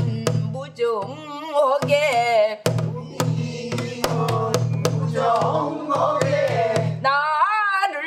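A woman sings a line of a Korean new folk song (sinminyo) with a wide, wavering vibrato, keeping time on a buk, the Korean barrel drum, with sharp strokes throughout.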